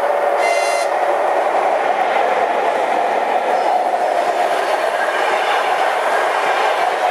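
ChS200 electric locomotive and its passenger coaches passing close at speed: a steady, loud rush of wheels on the rails. A brief high ringing tone sounds about half a second in.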